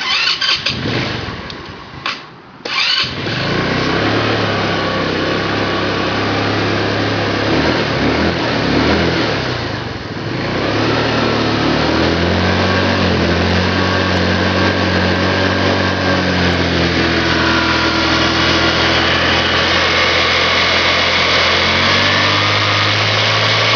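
A 150 cc GY6 single-cylinder four-stroke scooter engine being started. It catches after a few seconds of cranking, runs with a wavering pitch for several seconds, then settles into a steady idle.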